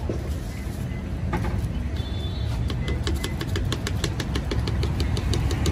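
Engine and traffic rumble of a busy street, with a rapid run of sharp clicks or taps, about six or seven a second, through the second half.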